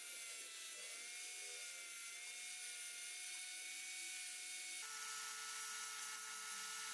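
Electric angle grinder with a sanding disc running at speed, a steady whine, as a small piece of wood is sanded against the disc. About two-thirds through, the whine drops to a lower, steady pitch.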